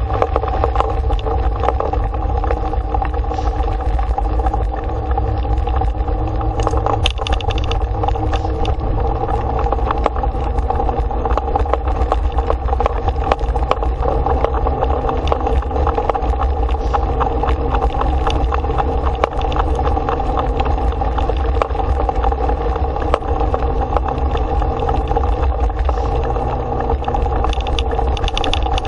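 Dog scooter rolling fast over a dirt road: a loud, steady rumble of tyres and wind buffeting the microphone, with a steady hum throughout.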